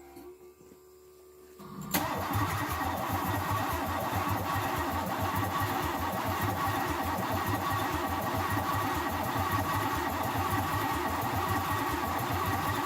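A freshly installed 350 Chevy small-block V8 being cranked over on its starter, starting about two seconds in and churning evenly with a steady starter whine for about twelve seconds without catching.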